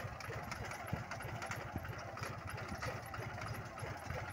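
Captain 250 mini tractor's diesel engine running steadily under load as it pulls a weighted hoeing bar through the soil between groundnut rows.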